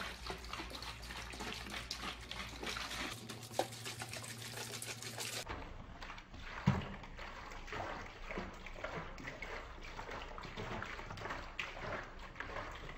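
Water sloshing inside two plastic drink bottles shaken by hand, mixing Jelli Worldz gel powder into the water. About halfway through there is a single thump.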